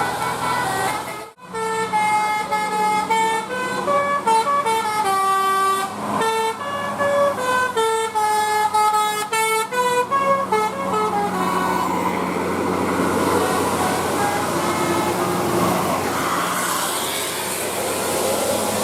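Bus basuri telolet horn playing a quick tune of pitched notes that change every fraction of a second. After about ten seconds the tune gives way to a steady hiss of noise.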